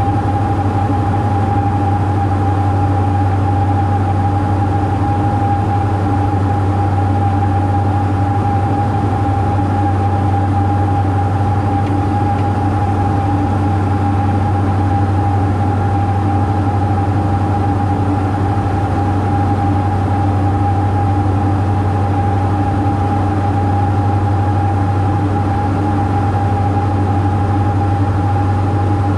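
Cabin noise of a Diamond DA42 twin-engine aircraft in flight: the engines and propellers drone steadily, with a steady higher tone above the drone.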